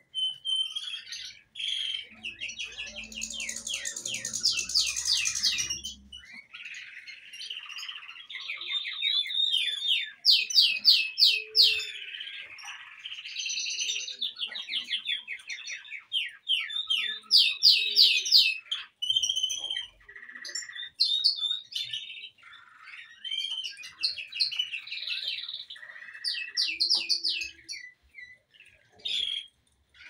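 Finch song: a long run of fast trills of repeated notes and twittering phrases with short gaps between them.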